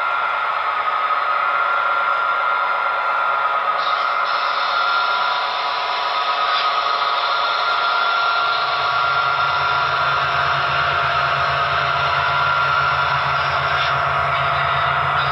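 Sound decoders in HO-scale Broadway Limited Paragon 4 EMD F7 model diesel locomotives playing a running diesel engine through their small onboard speakers, steady with a hiss. About eight and a half seconds in, a deep low engine rumble joins. The units are set to separate Rolling Thunder channels, so the sound plays crisp, with no fighting for the channel between the two F units.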